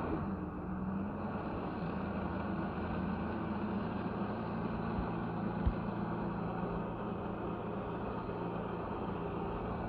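Jet ski engine running steadily, feeding water through the flyboard hose as the hose is drawn taut, with a single short thump about five and a half seconds in.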